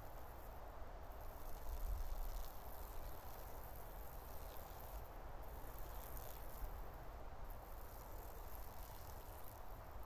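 Faint steady outdoor background hiss with a low rumble, likely wind on the microphone, that swells briefly about two seconds in; no bird call is heard.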